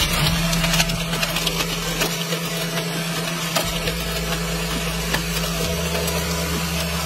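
Electric blender motor starts up and runs at a steady pitch, blending paan leaves with ice in the jar. Ice rattles and clicks against the jar in the first couple of seconds.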